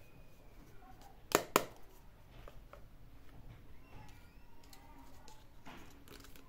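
Hard plastic toy pieces handled on a table: two sharp clicks about a quarter second apart, then quieter plastic taps and rustles.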